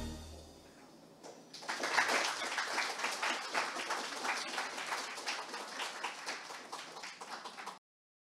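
A choir's final chord dies away, and after a short pause an audience applauds, the clapping thinning out before it cuts off suddenly near the end.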